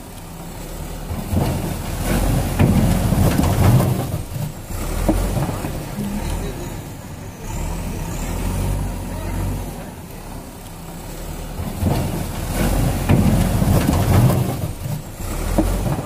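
Diesel engine of a JCB backhoe loader working under load, revving up twice as its front loader bucket shoves into a brick-and-concrete wall. Cracks and knocks of breaking masonry come with each push.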